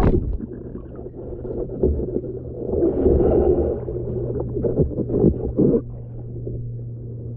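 Water sloshing and splashing as a person in a drysuit wades through harbour water, hands striking the surface, with gurgling from the waterproof camera housing just after it breaks the surface. A steady low hum runs underneath.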